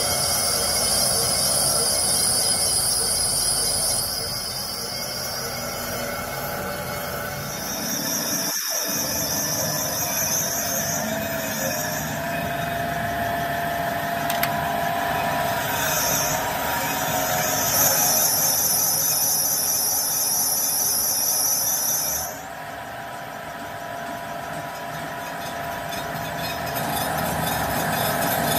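Crankshaft grinding machine's abrasive wheel grinding a crankshaft journal under coolant: a steady, high-pitched grinding hiss and squeal whose pitch and level jump abruptly several times.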